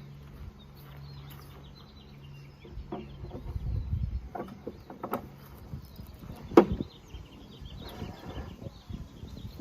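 Scattered knocks and clunks of parts and tools being handled, with one sharp bang about two-thirds of the way through. Birds chirp faintly in the background, and a low steady hum stops about a third of the way in.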